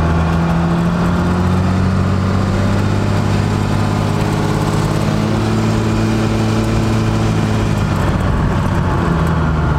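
12-valve Cummins straight-six diesel pulling the truck down the road at a steady drone, its pitch shifting only slightly.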